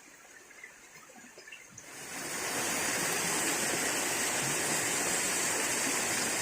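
Rushing water, a steady loud hiss that swells up about two seconds in and holds, after a quieter stretch with a few faint clicks.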